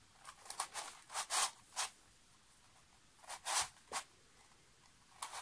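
Spartacus, a 3D-printed dodecahedral twisty puzzle, having its layers turned by hand: short scraping clicks of plastic pieces sliding over each other, several in the first two seconds, two more about three and a half seconds in, and one near the end.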